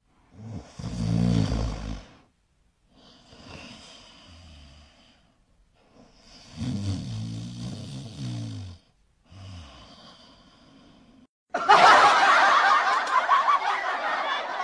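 French bulldog snorting and grunting in several short bouts while licking and mouthing a metal doorstop. A louder, noisier stretch starts about three seconds before the end.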